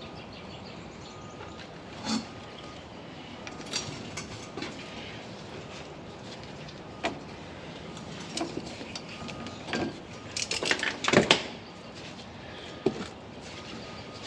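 Steel locking wire being twisted out of the groove that holds a hydraulic cylinder's head in its casing: scattered metallic clicks and scrapes over a steady hiss, with a cluster of louder scraping about ten seconds in.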